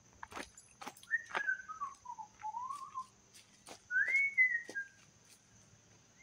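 A person whistling two slow phrases: the first glides down in pitch and wavers back up, the second rises and falls. Footsteps crunch on gravel as he walks.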